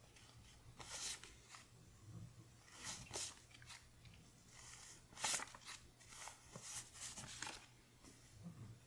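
Paper one-dollar bills faintly rustling and flicking as they are thumbed off a stack one by one, a short crisp rustle every second or so.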